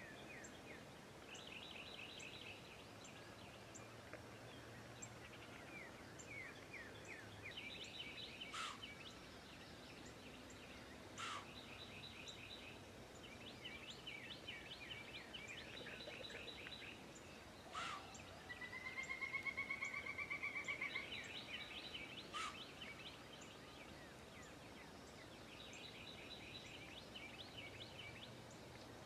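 Faint birdsong: several birds singing repeated trilled phrases, with a few sharp single down-slurred calls. Around two-thirds of the way through comes a louder, fast run of repeated notes.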